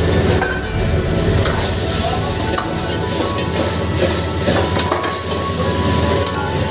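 Sliced chicken sizzling as it is stir-fried in a wok over a high gas flame, a metal ladle scraping and knocking against the wok several times. A steady low roar runs underneath.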